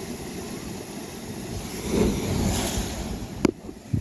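Kiama Blowhole blowing in heavy swell: sea water surging and spraying up through the rock chasm, swelling about two seconds in. A single sharp click comes a little before the end.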